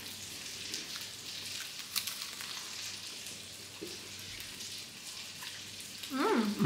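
People chewing bites of burger close to the microphone: faint crackly mouth noises with a few small clicks. Near the end a short hummed "mm".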